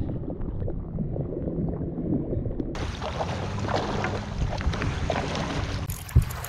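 Wind rumbling on the microphone over sea water lapping around a kayak, with small splashes. About three seconds in the sound changes abruptly and becomes brighter; a single deep thump sounds near the end.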